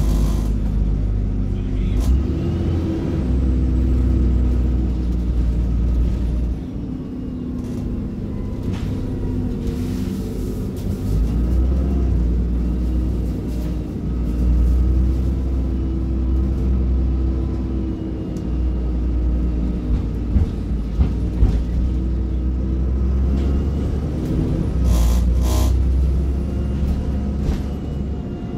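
Bus diesel engine and ZF automatic gearbox heard from on board while under way, a low rumble throughout, the engine note rising and falling as the bus speeds up and eases off. A few sharp clicks come about two-thirds of the way in, and a short pulsing tone sounds a few seconds before the end.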